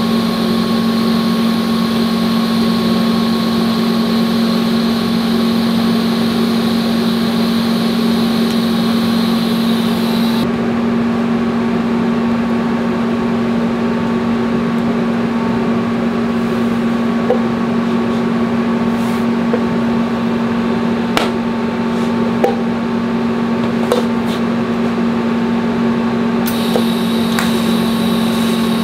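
TIG welder running on a steel axle tube: a steady low hum, with a higher hiss over it while the arc burns. The hiss stops about ten seconds in, leaving the hum and a few light clicks, and comes back near the end.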